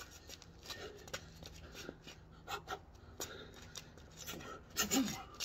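Soft rustling and scuffing of clothing and footsteps from someone moving about, with a short vocal sound near the end.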